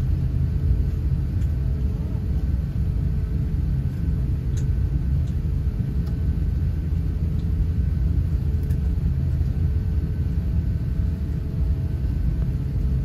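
Airliner cabin noise heard from a window seat while the plane is on the ground: a steady low rumble with a faint steady whine over it.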